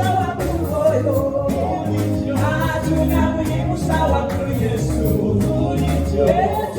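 Gospel worship music: voices singing over a band with a bass line that moves from note to note.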